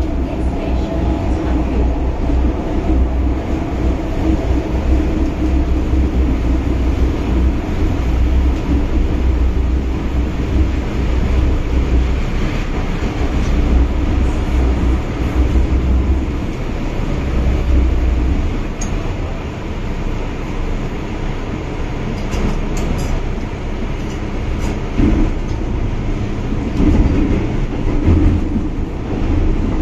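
An MTR Island Line M-Train, a metro electric multiple unit, running through a tunnel, heard from inside the carriage as steady loud running noise. The deep rumble drops away about two-thirds of the way through.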